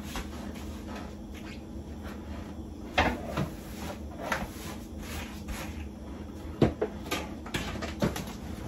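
Floor being cleaned with a long-handled floor-cleaning tool: repeated brushing strokes, a sharp knock about three seconds in and several more knocks near the end, over a steady low hum.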